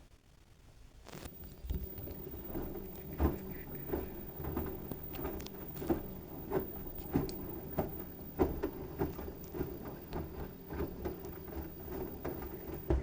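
LG washing machine running with a load of wet towels: a steady motor and drum hum with soft thuds, roughly one to two a second, as the towels tumble in the drum. It starts about a second in and stops abruptly at the end.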